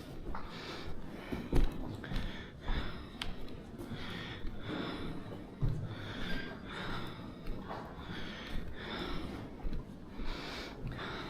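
A person breathing hard, with quick audible breaths in and out one after another, and a few sharp knocks, the loudest about one and a half seconds in.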